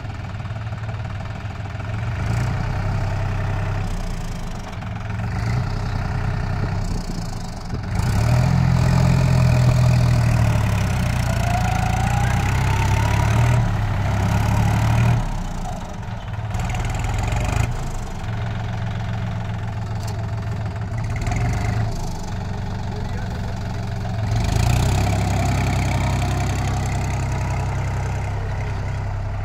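Tractor diesel engine working under load as it drives a rotary tiller through field stubble, its loudness swelling and dipping as the tractor moves. A brief rising whine comes partway through.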